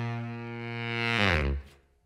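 Background music: one held low note with a full stack of overtones, which drops in pitch and dies away about a second and a half in.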